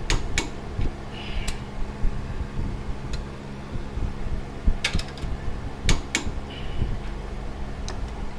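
Hand tools and metal parts clinking and clattering in a few sharp, irregular knocks over the steady hum of an electric fan.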